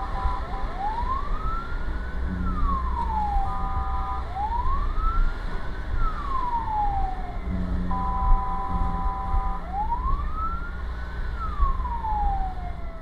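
Fire truck siren heard from inside the cab, wailing slowly up and down three times. Between the wails comes a steady multi-tone horn blast, a short one about three and a half seconds in and a longer one about eight seconds in. The truck's engine and road noise rumble underneath throughout.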